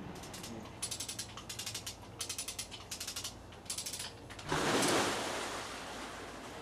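Several short runs of rapid, ratchet-like mechanical clicking. About four and a half seconds in comes a sudden loud rush and splash of water as a barrel bursts up to the surface, fading away over the next couple of seconds.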